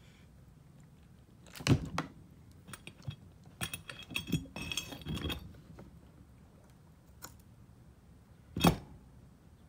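Metal parts of a 62TE transmission solenoid pack and valve body clinking and knocking as they are handled. A pair of knocks comes early, a busy run of clinks follows in the middle, and one loud knock comes near the end.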